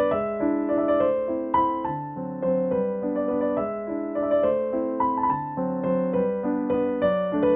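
Background piano music: a slow melody of struck notes that ring and fade over held lower notes.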